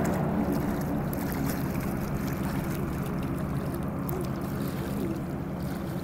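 A de Havilland Canada DHC-2 Beaver floatplane's radial engine and propeller droning steadily, slowly fading as the plane climbs away into the distance.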